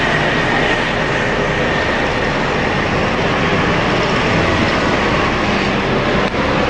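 Steady city traffic noise from a busy street, loud and continuous, with a single short click near the end.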